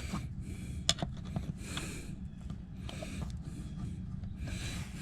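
Hard breathing through the nose in short puffs, with a few small sharp clicks of plastic being pried at.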